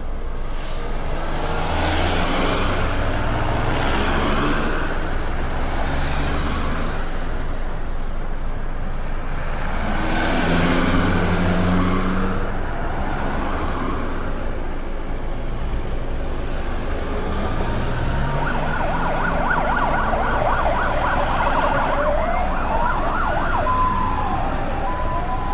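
Busy street traffic, with cars and trucks passing and engines running. About two-thirds of the way in, an emergency vehicle siren starts with a rapid yelp, then changes to a slower rising and falling wail.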